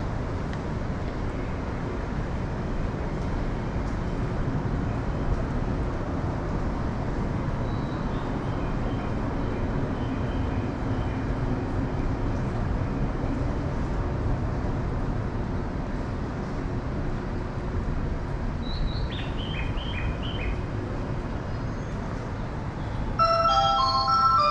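Steady low rumble of a busy train station platform, with a few faint high chirps about two-thirds of the way through. Near the end an electronic chime melody starts up, a platform departure melody.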